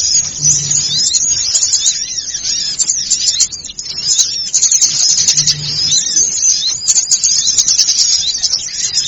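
Bird-lure recording of many small songbirds calling at once: a dense, noisy chorus of fast, high chirps and twitters without a break. A short low hum recurs about every five seconds.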